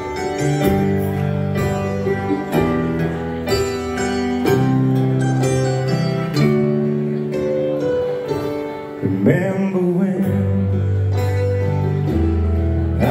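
Live band playing the slow instrumental intro of a ballad: sustained keyboard piano chords over electric bass notes, with guitar.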